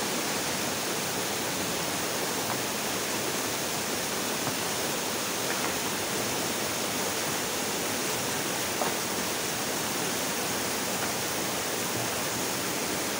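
Steady rush of stream water flowing over rocks.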